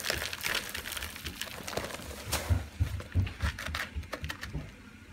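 Dry Quikrete quick-setting concrete mix pouring from a paper bag into a plastic flower pot: a gritty hiss of gravel and powder that stops about two and a half seconds in. A few dull knocks and scrapes follow as the pot and the plastic tube inside it are handled.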